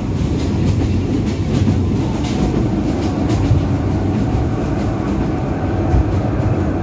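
Passenger train running, heard from inside the coach: a steady low rumble of wheels on track, with faint light clicks over it.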